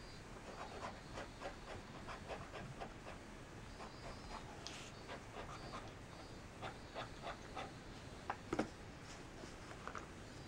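Steel fountain pen nib scratching across notebook paper in short, quick strokes: a Montegrappa Fortuna Mosaico Marrakech being test-written. About eight and a half seconds in, two sharp clicks stand out as the loudest sounds.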